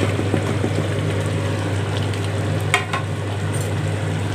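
Country-chicken gravy cooking in a large metal pot on the stove, a steady bubbling sizzle over a low steady hum, with a short knock a little under three seconds in.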